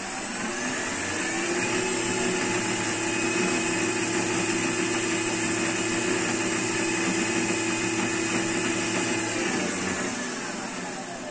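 WEISAN WM210F400 mini metal lathe running with no load, its 1100 W variable-speed spindle motor and belt drive giving a steady whine. The whine rises in pitch over the first second or so as the speed is turned up to about 2250 rpm, holds there, then falls near the end as the speed is turned back down.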